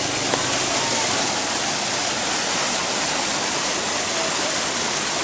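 Flash-flood water rushing past in a loud, steady hiss, with a small click about a third of a second in.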